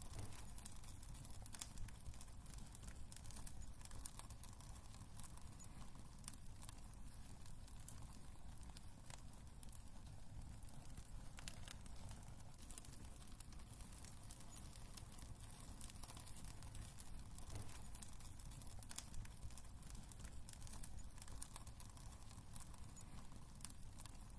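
Wood fire crackling in a fireplace: irregular small pops and snaps over a low, steady rumble of the burning logs.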